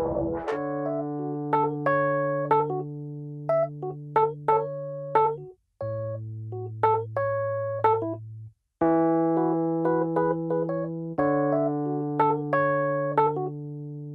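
Background music: an electric piano plays held low notes and chords with short notes on top, dropping out briefly twice, around six and nine seconds in.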